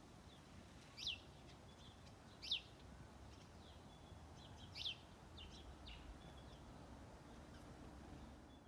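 Wild birds calling outdoors: three high chirps, each falling in pitch, about a second, two and a half seconds and five seconds in, with fainter chirps between, over faint low background noise.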